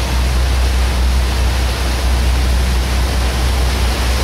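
A powerboat underway: a steady low engine drone under a constant rushing noise of wind and water.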